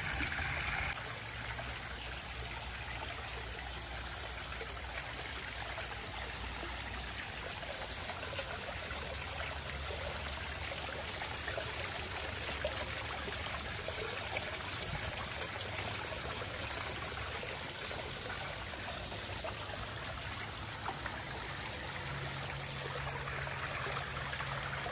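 Water splashing and trickling steadily into a garden koi pond from a pump-fed fountain jet and rock waterfall, a little louder in the first second.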